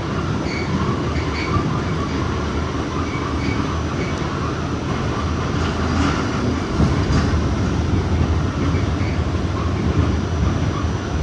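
R46 subway train running on the Rockaway Park Shuttle line, heard from aboard: a steady rumble of wheels on rail with faint high tones coming and going and a few faint clicks, growing a little louder about seven seconds in.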